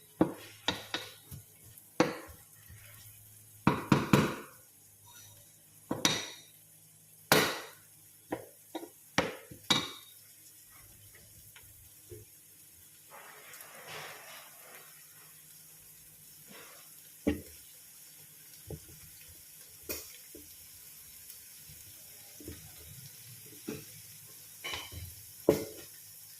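Kitchen clatter: dishes and utensils knocking and clinking, with a dozen or so sharp knocks in the first ten seconds. About 13 seconds in there is a brief run of water, then scattered clinks.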